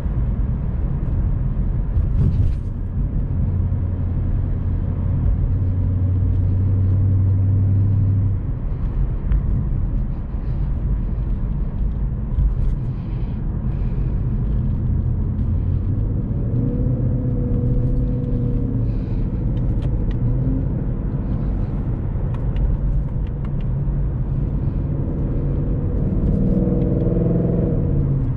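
Ford Mustang GT's 5.0-litre V8 engine running under way, heard from inside the cabin with road noise. It holds a steady low drone for several seconds, and its note climbs near the end as the revs rise.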